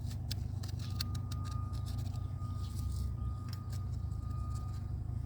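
Grease gun pumping into a grease fitting on a Kubota KX033-4 excavator pivot, giving irregular light metallic clicks over a steady low mechanical hum. A faint thin steady whine comes in about a second in.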